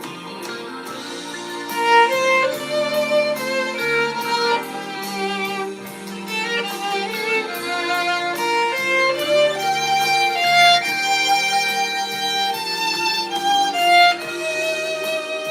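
Instrumental break of a slow pop ballad's backing music: a lead instrument plays the melody over sustained accompaniment and a steady beat, with no voice.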